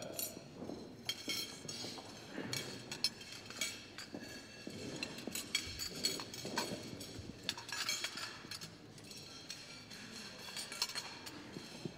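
Scattered light clinks of cutlery and dishes at dinner tables over low room noise.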